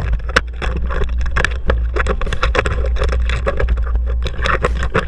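Handling noise from a camera mounted on an airsoft rifle being carried while moving: a constant low rumble with irregular knocks and rattles.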